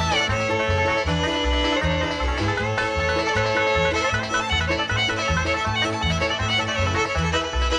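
Bluegrass music with banjo and fiddle over a steady bass beat.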